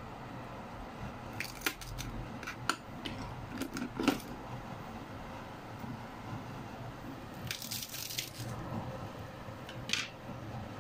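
Kitchenware clinking and knocking: a cluster of light clinks between about one and a half and four seconds in, a short scraping rustle around the middle of the second half, and one more clink near the end, over a steady low background hum.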